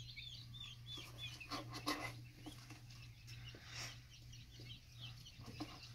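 Quail chicks peeping in faint, rapid high cheeps, thickest in the first second and thinning out after. Brief rustles of wood shavings and cardboard come as they are set down, over a low steady hum.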